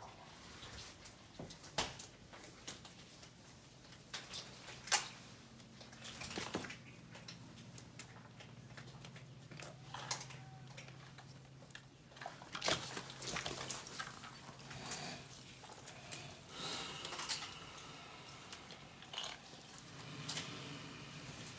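Crocodiles crunching snail shells in their jaws: irregular sharp cracks and clicks, some loud, scattered throughout.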